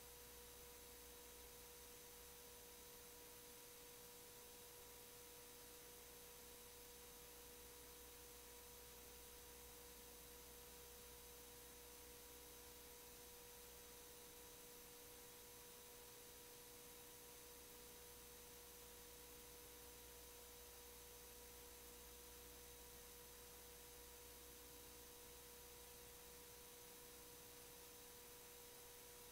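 Near silence with a faint, steady electrical hum at one unchanging pitch.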